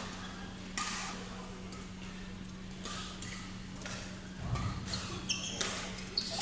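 Badminton doubles play: a string of sharp racket hits on the shuttlecock and short high shoe squeaks on the court floor, over a steady low hum.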